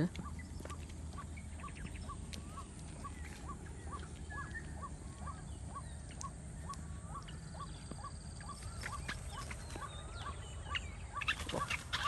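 White-breasted waterhen (ruak-ruak) calling: a short, upward-bending note repeated about twice a second in a long monotonous series.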